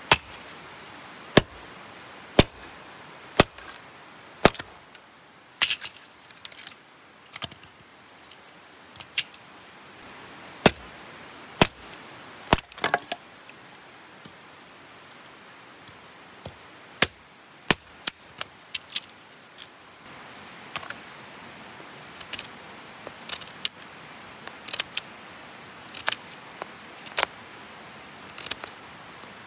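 Hatchet chopping firewood, splitting a log: sharp wooden strikes about one a second for the first few seconds, then more spaced, irregular knocks. In the last third, lighter, quicker clicks as a knife shaves the split wood into kindling.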